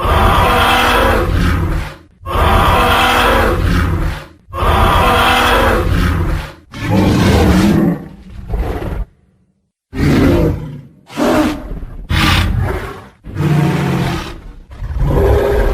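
Tyrannosaurus rex roar sound effect: a series of loud, rough roars, each about two seconds long, then after a brief silence about nine seconds in, shorter growls and roars in quick succession.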